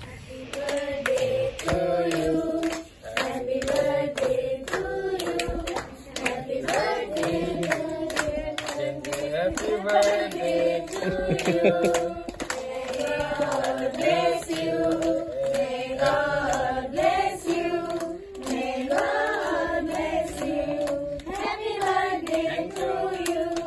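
A group of children and adults singing a birthday song together, clapping their hands in time throughout.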